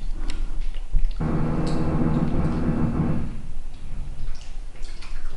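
A metal spoon clinking and scraping in a ceramic soup bowl, with a steady, pitched hum lasting about two seconds from just over a second in.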